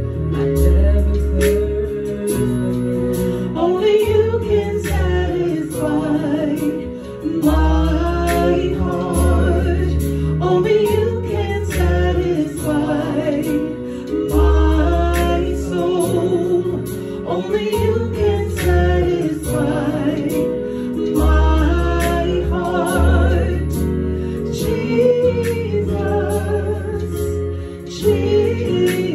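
Gospel worship song sung by a small group, a woman's lead voice over backing singers, with a Yamaha Motif keyboard playing sustained chords and a deep bass line that moves every second or two.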